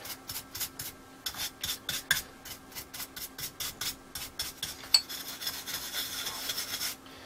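Short-bristled paintbrush scrubbing thick dust off a valve TV chassis around the line output transformer: quick, repeated scratchy brush strokes.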